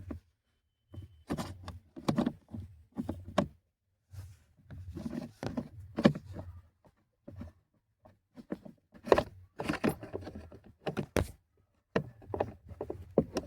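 Irregular knocks and clicks of tools and plastic parts being handled as a car's AC actuator motor is refitted and screwed back into place.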